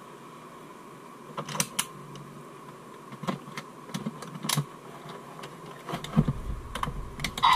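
Hard plastic clicks and knocks from a DX Desire Driver toy transformation belt being gripped and handled by hand. There are a few scattered clicks, then a cluster of low thumps as it is lifted and turned near the end, over a faint steady hum.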